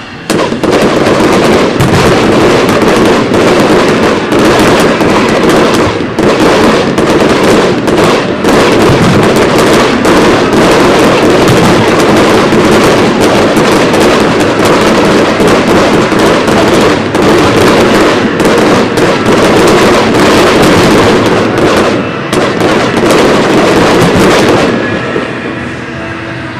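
Fireworks going off in a dense, continuous barrage of rapid bursts and crackling, thinning out abruptly near the end.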